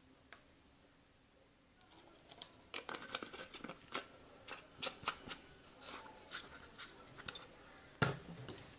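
Faint, irregular clicks and taps of slime-making supplies being handled as glue is added, starting about two seconds in; the loudest knock comes near the end.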